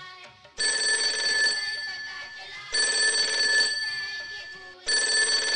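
Old telephone bell ringing: three rings, each about a second long and about two seconds apart, the first starting about half a second in.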